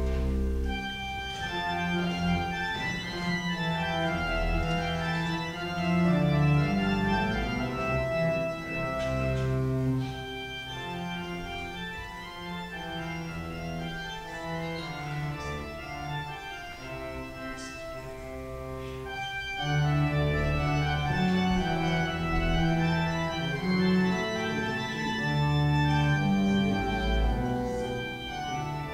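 Church organ playing a slow voluntary of held chords during the offertory, softer in the middle and swelling again about two-thirds of the way through.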